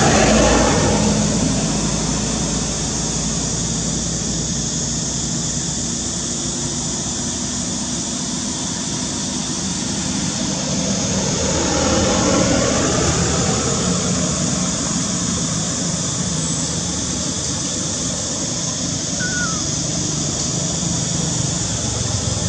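Steady droning outdoor background noise: a low motor-like hum under a high hiss, swelling a little about halfway through.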